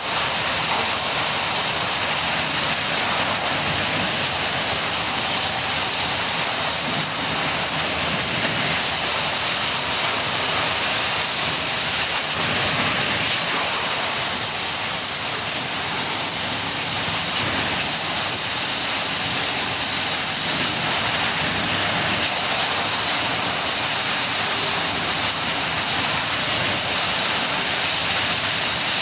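FRIEND wide belt sander running: a steady, loud rushing noise with a constant high-pitched hiss over it.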